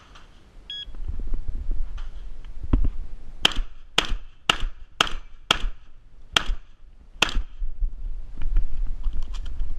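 Shot timer's start beep, then a fast string of shotgun shots: five about half a second apart, then two more spaced nearly a second apart, with a low rumble underneath.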